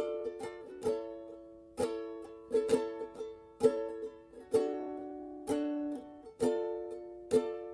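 Music: a song's instrumental intro of strummed chords on a small acoustic plucked string instrument, about one strum a second, each chord ringing out and fading before the next.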